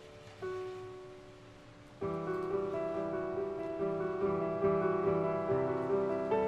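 Piano music: a single note about half a second in, left to fade, then from about two seconds in a louder, fuller passage of chords and repeated notes.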